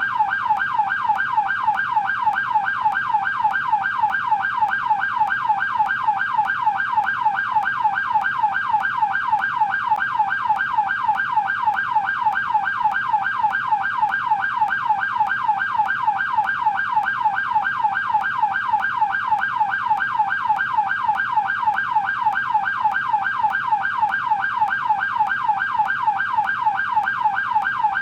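American police car siren on the yelp setting: a rapid, even warble that sweeps up and down in pitch several times a second, without a break.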